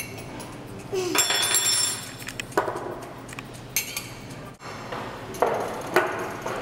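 Spoons and tableware clinking against ceramic mugs and glasses at a café table: a series of sharp clinks, some with a bright metallic ring, the loudest just over a second in.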